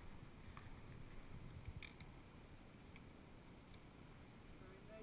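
Near silence: faint background hiss with a few faint, scattered clicks.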